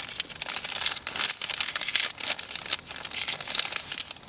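Plastic bag of a self-heating ration pack being folded and rolled over at the top, crinkling and crackling irregularly throughout. The bag is being sealed after water has been added to the heating chemicals.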